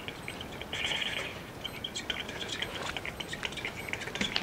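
Book pages being turned quickly by hand: a run of soft paper flicks and rustles, with a louder rustle about a second in.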